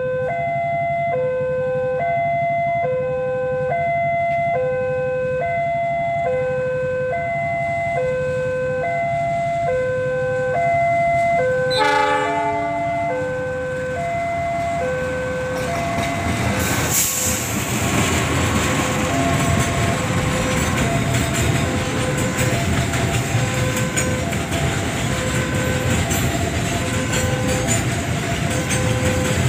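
Level-crossing alarm sounding a repeating two-note chime, about once a second, as a diesel-hauled container freight train approaches. About twelve seconds in the locomotive gives one short horn blast, and from about sixteen seconds the wheel and engine noise of the train passing close by fills the sound while the alarm keeps chiming under it.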